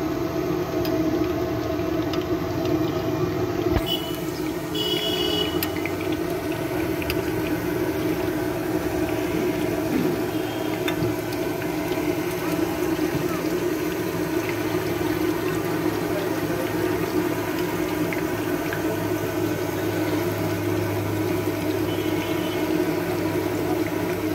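Chicken seekh kababs deep-frying in a wide pan of hot oil, a steady sizzle and bubbling. A low steady hum comes in about halfway through.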